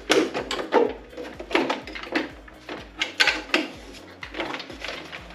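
An equipment housing being handled and hooked into place: an irregular series of hard clicks and knocks, some sharp strikes close together.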